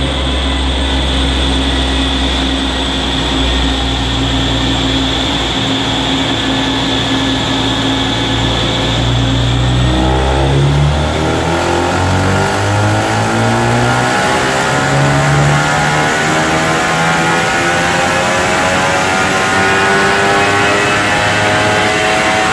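Ford Focus RS's turbocharged 2.3-litre four-cylinder, with a Mountune tune and aftermarket exhaust, running on a chassis dyno. It holds a steady low note for about ten seconds, then climbs steadily in pitch as the revs build through the pull.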